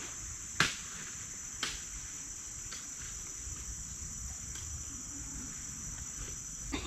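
Insects keep up a steady high-pitched drone in the forest, with two short clicks within the first two seconds.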